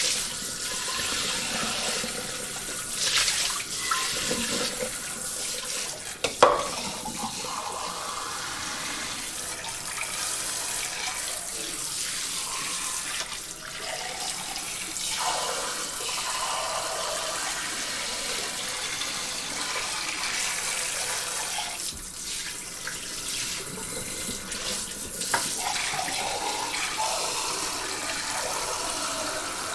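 Water spraying from a kitchen sink sprayer onto dishes, a steady hiss with occasional dish knocks, the sharpest about six seconds in.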